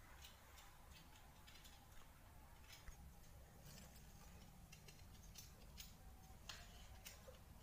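Faint, irregular taps of a kitchen knife against a wooden cutting board as food is diced into small cubes.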